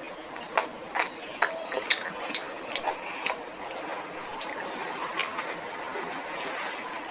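Close-miked eating sounds: chewing with many short, sharp mouth clicks and crunches, and a brief ringing clink about a second and a half in, like utensil on a plate or glass.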